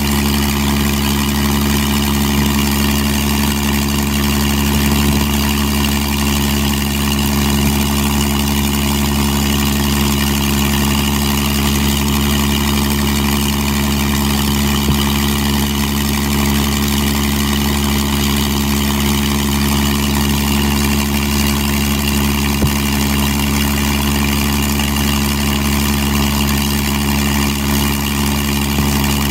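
Supermarine Spitfire Mk XIV's Rolls-Royce Griffon V12 engine running steadily on a ground run, propeller turning. The pitch and loudness hold constant throughout.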